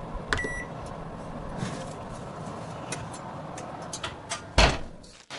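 Electric oven's timer knob clicking, with a short high beep as the 40-minute timer is set, then the oven door swung shut with a single thump about four and a half seconds in.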